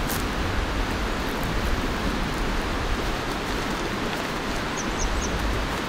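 River water rushing steadily, an even hiss of flowing water, with three faint short high chirps near the end.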